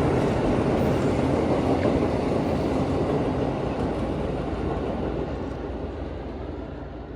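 A train passing close by, a steady loud noise of rolling wheels and cars that fades away over the last few seconds as it moves off.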